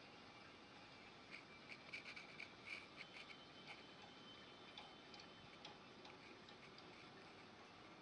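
Faint scratching of a graphite pencil sketching on textured drawing paper, in a run of short strokes that come thicker in the first half.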